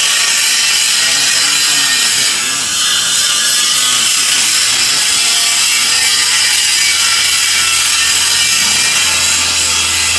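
Stone-cutting machine grinding its cutting table flat: a loud, steady, high-pitched grinding hiss, with a low hum joining near the end.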